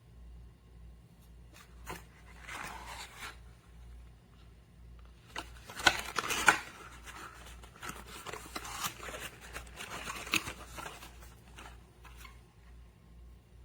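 Irregular scraping, rustling and sharp clicks of objects being handled close to the microphone, loudest about six seconds in.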